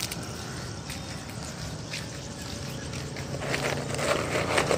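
Outdoor street ambience: a steady low traffic hum, louder and rougher over the last second or so.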